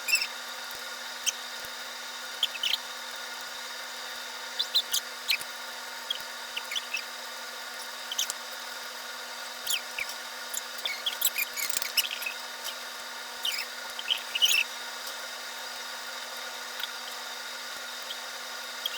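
Small sharp clicks and clinks of eating at a table, scattered irregularly and busiest in the middle, over a steady hiss with a constant electrical hum.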